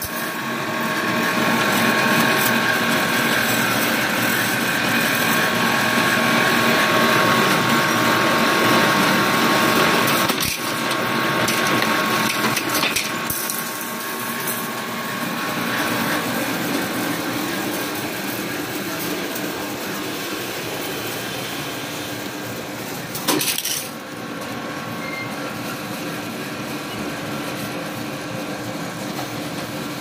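Wire buckle-making machine running: a steady mechanical hum and whir with scattered clicks as wire feeds through its straightener. It drops somewhat in level about ten seconds in, and a single sharp knock comes a little after twenty-three seconds.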